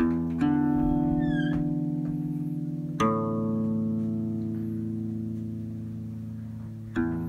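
Background music of slow, ringing chords, a new chord struck about every three seconds and left to fade.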